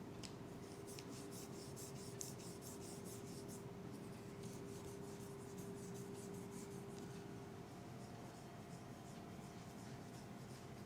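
Hands rubbing over hair and skin in a head massage: a quick run of short, scratchy strokes for the first few seconds, then fainter rubbing. A steady hum runs underneath.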